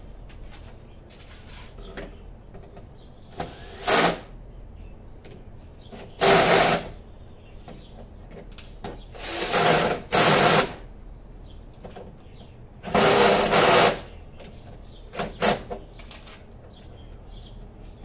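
Cordless drill driving screws in several short bursts of up to about a second, with pauses between.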